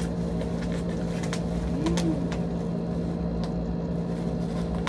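Plastic parcel wrapping being pulled and torn by hand, giving scattered sharp crackles, over a steady electric hum.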